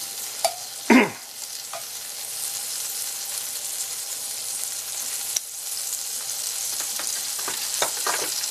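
Butter sizzling and foaming as it melts in a hot cast-iron skillet, left to brown rather than cooled with water. A few short knocks and scrapes of a knife blade pushing the butter around the pan, the loudest about a second in.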